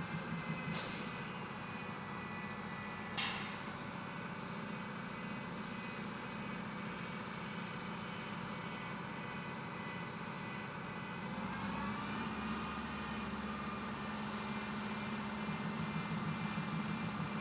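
Tractor diesel engine running steadily, with whining hydraulics driving a timber crane. A short sharp hiss comes about three seconds in, with a fainter one just before it. Around twelve seconds in, the engine and the whine rise in pitch and get a little louder.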